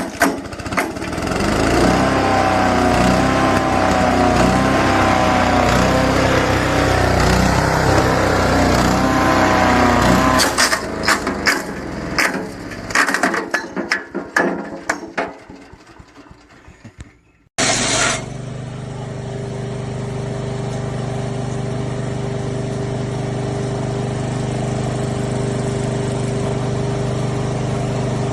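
SuperHandy 7 HP wood chipper's small gas engine running with a wavering pitch, with a run of sharp knocks and cracks about ten seconds in. It then winds down almost to silence, and about seventeen seconds in starts abruptly again, running steadily.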